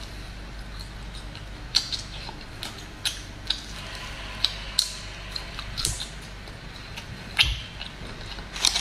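Dried duck neck being chewed: scattered short, sharp crunches and clicks, about eight in all, over a faint steady low hum.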